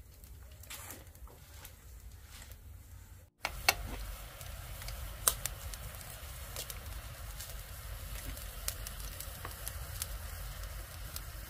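Tomato sauce bubbling and sizzling in a frying pan over a wood fire, with scattered sharp pops. The sizzling is quieter at first and louder after a short break about three seconds in.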